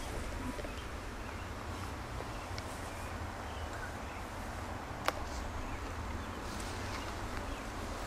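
Quiet outdoor ambience: a steady low rumble and hiss, with scattered faint ticks and one sharp click about five seconds in.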